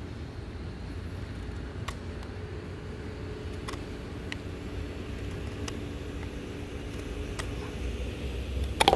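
AUS-8 steel knife blade cutting into hardwood. Sparse single clicks come about once a second, and a louder cluster of sharp clicks and snaps comes near the end, over a steady low rumble.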